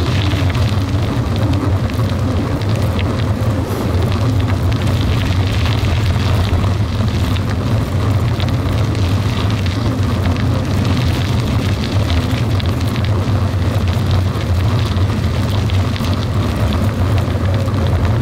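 Steady low rumble of a vehicle travelling along an unpaved gravel road: tyre noise on the gravel mixed with wind on the microphone, holding an even level throughout.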